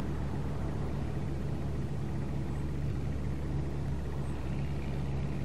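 Cessna 120's four-cylinder Continental engine at takeoff power, a steady low drone as the plane lifts off the runway and climbs away.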